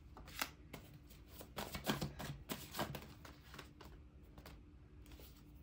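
A stack of handwritten paper index cards being handled and shuffled in the hand: irregular light clicks and rustles of paper.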